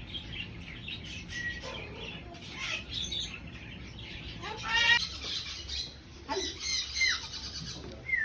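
Parrots calling: a string of short chirps and whistled glides, with one louder, harsher call about five seconds in.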